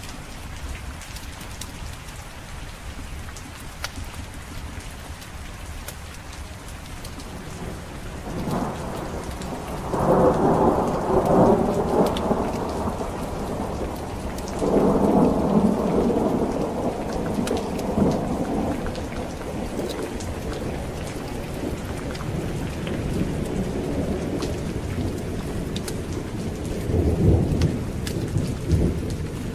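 Steady heavy rain with rolling thunder: a rumble builds about eight seconds in and swells twice, loudest around ten and fifteen seconds, then rumbles again near the end.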